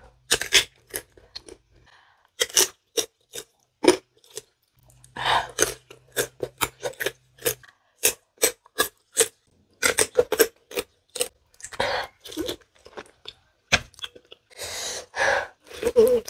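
Crisp crunching and chewing of raw green tamarind pods, bite after bite in quick runs with short pauses. Near the end comes a bite into a peeled santol fruit.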